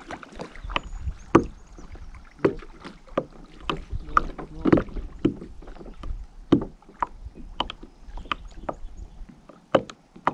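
Kayak paddling: the paddle blades dip and splash in the water and now and then knock against the kayak, in an irregular run of short strokes about one or two a second.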